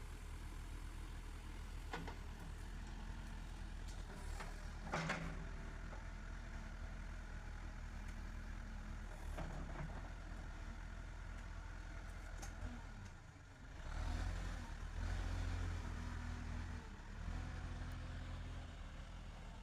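JCB 3CX backhoe loader's diesel engine running steadily, with a few sharp knocks in the first ten seconds. About fourteen seconds in, the engine gets louder and holds there for several seconds before easing back.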